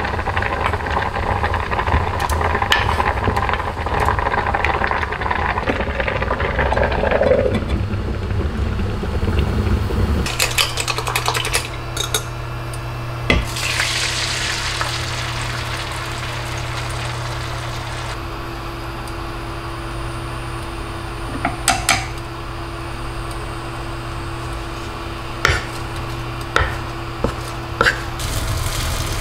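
Soup bubbling at a rolling boil in a stainless steel ttukbaegi pot. Then, over a steady hum, beaten egg poured into a hot square stainless pan sizzles, and a spatula clicks against the pan a few times near the end as the omelette is rolled.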